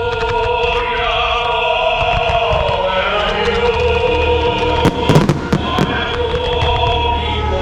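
Display fireworks bursting and crackling, with a cluster of louder bangs about five seconds in, over operatic choral music with sustained sung notes.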